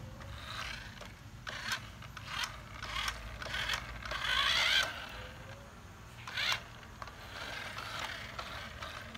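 Small electric gear motors of a toy RC excavator running in short bursts as its arm and bucket move. The longest and loudest burst comes a little before the middle.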